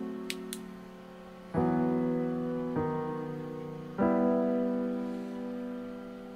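Background piano music: slow chords struck about every one to two seconds, each left to ring and fade.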